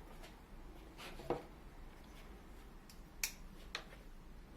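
A few faint, sharp clicks and taps from a tablet's retail box being handled: one about a second in, then two close together a little past halfway.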